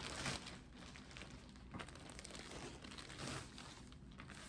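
Packaging crinkling and tearing as clothing is unwrapped from a mail-order parcel: faint, uneven rustles with a slightly louder burst at the start.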